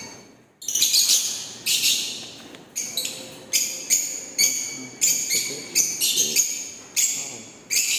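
Caged African birds calling: repeated shrill, high-pitched calls, about one a second, each fading quickly.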